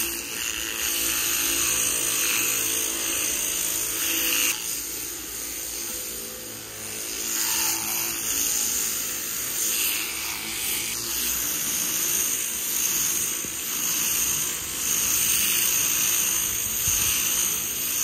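Electric sheep-shearing handpiece running steadily while it clips wool off a ewe to clear an early fly strike. Its loudness rises and falls every second or two.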